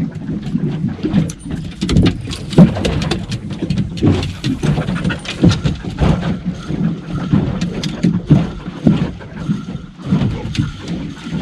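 Water slapping and knocking against the hull of a small aluminium boat at sea, a run of irregular sharp knocks and splashes over a low rumble.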